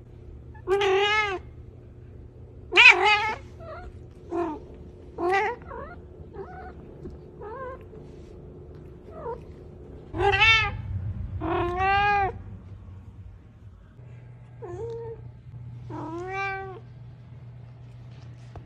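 Domestic cat meowing repeatedly: about ten short meows, each rising and falling in pitch, a second or two apart, some loud and some soft.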